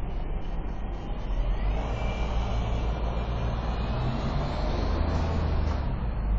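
City traffic passing, led by a bus: a steady low engine rumble that grows a little louder about a second and a half in, with a faint whine gliding above it.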